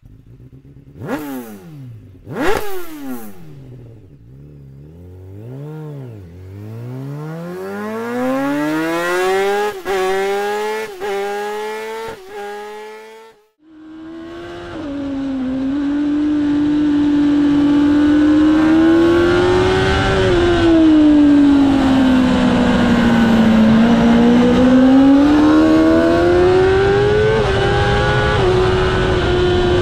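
Racing superbike engine heard from an onboard camera: two sharp throttle blips, then revving up through the gears with quick upshifts. After a brief drop-out it runs at high revs on track with wind rush, the pitch easing down about twenty seconds in and climbing again towards the end.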